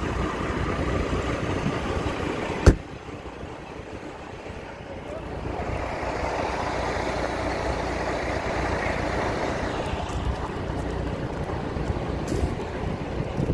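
Semi truck idling, a steady low rumble under a noisy hiss, with one sharp click about two and a half seconds in.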